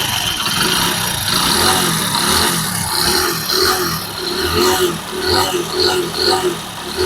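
Hero HF Deluxe's single-cylinder engine running with the bad mechanical noise it had before its rebuild, with regular pulses of about two a second from about three seconds in.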